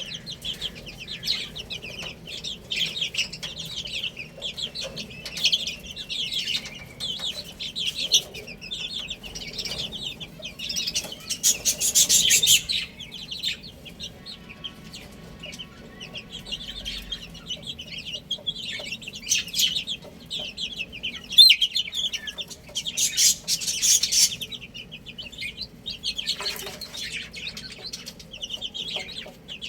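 A flock of baby chicks peeping: rapid, high-pitched chirps overlapping almost continuously, swelling into louder bursts about twelve seconds in and again near twenty-four seconds, with a quieter lull between.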